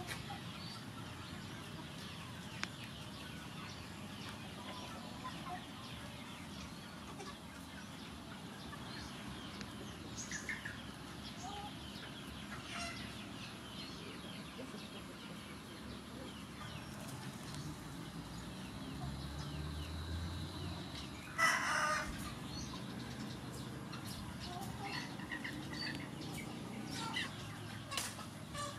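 Chickens clucking and calling faintly in the background, with one louder, brief call about two-thirds of the way through.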